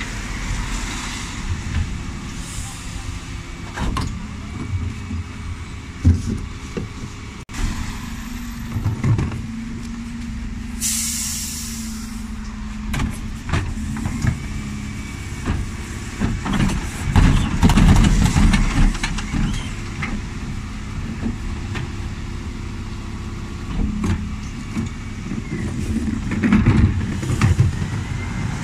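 Dennis Elite 6 bin lorry running while its Terberg TA-DE rear lift raises and tips wheelie bins, with knocks and clatters of the bins against the lift. A short, sharp hiss of air comes about eleven seconds in.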